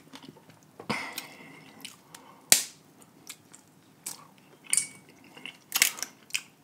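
Snow crab leg shells cracking and snapping by hand in a series of sharp cracks, the loudest about two and a half seconds in, between close wet chewing of crab meat.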